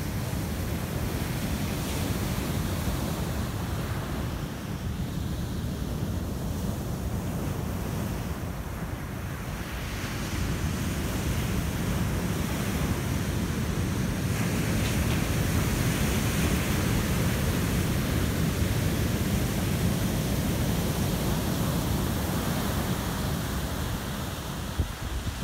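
Heavy ocean surf breaking and washing up a sandy beach in a continuous rushing roar, swelling louder about halfway through.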